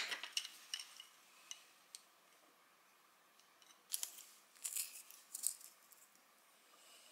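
A coloured pencil being sharpened in a small handheld sharpener: the blade shaves the wood in short, scratchy strokes, in two spells, one in the first second and a half and another from about four to five and a half seconds in.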